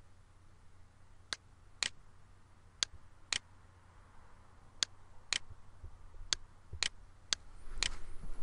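Computer mouse button clicking, five pairs of sharp clicks with the two clicks of each pair about half a second apart, over a faint low hum. A low rumble swells under the last clicks near the end.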